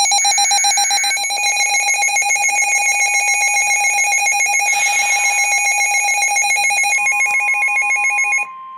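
Emergency alert attention signal from an alert receiver, announcing an incoming flash flood warning. It is a loud electronic alarm tone with several pitches at once, pulsing rapidly at about seven beats a second, and it cuts off abruptly shortly before the end. A steady single tone joins it about seven seconds in and continues after the alarm stops.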